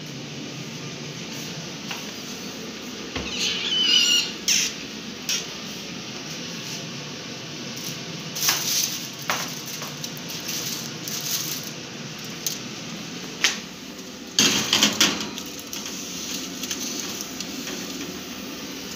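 Metal clatter and scraping from a foil-covered baking tray and an oven being handled: the oven door is opened and the tray is slid onto the oven rack. The noises come in several short bursts, the loudest about three-quarters of the way through, over a steady low hum.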